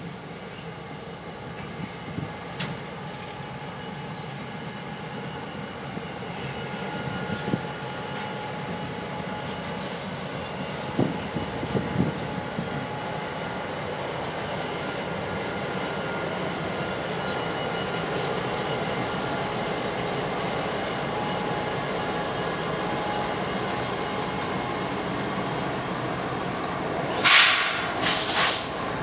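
Freight train of gondola cars and BNSF diesel locomotives rolling slowly past on a switching move. The wheels squeal in steady high tones against the rails, and the rumble grows louder as the locomotives draw near. Two short, loud noise bursts come near the end.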